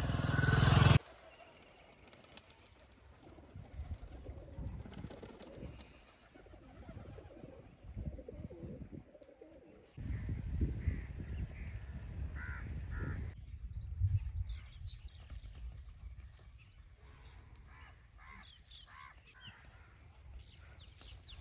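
Outdoor bird calls, with short chirps and calls over a low rumble, in several cut-together clips. A loud passage cuts off abruptly about a second in.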